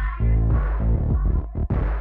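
Electronic music with a heavy, throbbing bass and a steady beat.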